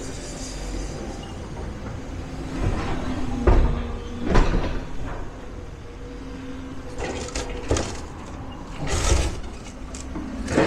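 Demolition excavator running with a steady engine hum while debris crunches and crashes at irregular moments, loudest about three and a half and four and a half seconds in, with more crashes later on.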